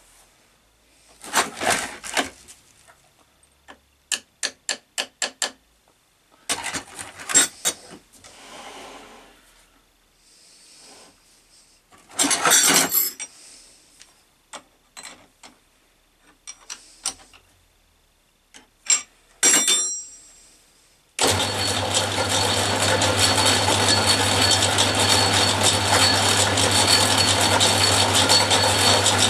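A metal workpiece being knocked into place with a series of separate knocks and taps, among them a run of five quick light taps. About two thirds of the way through, a metal lathe's motor is switched on and runs steadily with a low hum.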